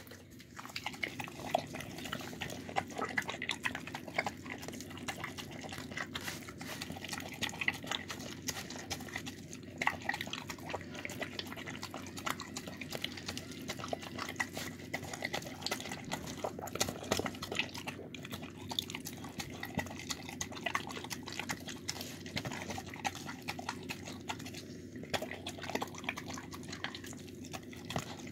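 Dog eating soft, moist food from a plastic tub: continuous wet smacking, lapping and chewing, with quick clicks throughout.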